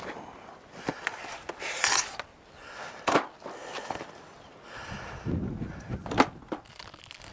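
Irregular wooden knocks, clicks and scrapes of beehive boxes and frames being handled during a hive inspection, with sharp clicks about three seconds in and again about six seconds in.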